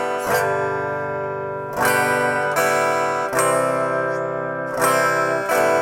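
Acoustic guitar strummed slowly, one chord stroke at a time, each left to ring until the next, in the open-up strum pattern of down, down, open, down.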